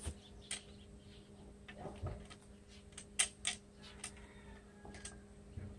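Sharp clicks and light knocks of plastic and metal as a backpack brush cutter's flexible drive shaft is handled and fitted into the engine's clutch housing, about five clicks with the loudest pair about three seconds in. A faint steady hum lies underneath.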